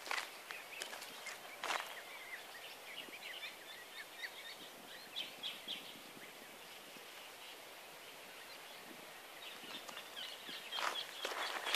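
Faint outdoor ambience with small birds chirping in short scattered calls, and a few footsteps on dry dirt near the start and again near the end.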